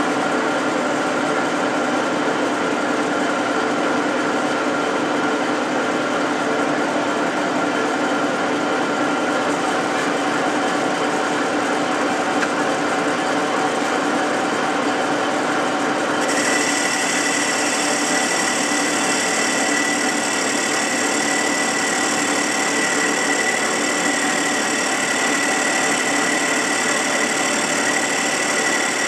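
Metal lathe running steadily: a dense mechanical hum with several steady whining tones. About sixteen seconds in, a higher-pitched whine joins and carries on steadily.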